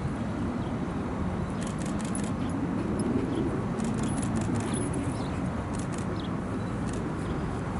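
A steady low outdoor rumble, with three short bursts of light metallic jingling from a German Shepherd's chain collar as the dog runs and clears a wooden hurdle.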